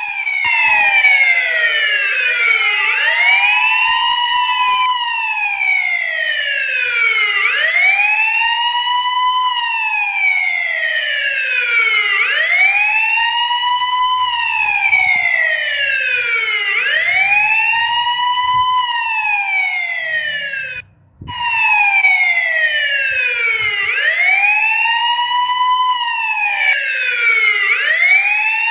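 Police siren wailing, its pitch rising quickly and falling slowly in cycles of about four to five seconds. It cuts out for a moment about twenty-one seconds in.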